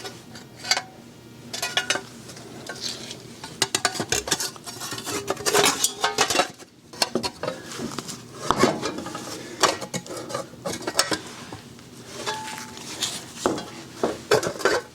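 Irregular light metallic clinks and knocks of steel parts handled and fitted during a wheel hub assembly replacement.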